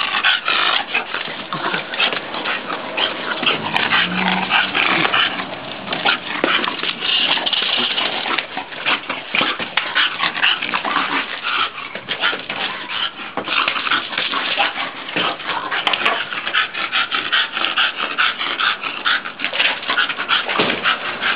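English bulldog breathing hard in rapid, noisy pants as it chases and pushes a ball around.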